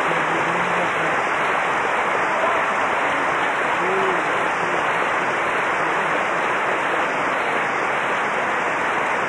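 Recital audience applauding steadily, with a few voices calling out among the clapping.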